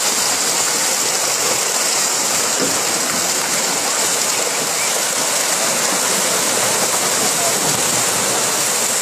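Piranhas in a feeding frenzy, thrashing at the surface and churning the water into a steady, dense splashing.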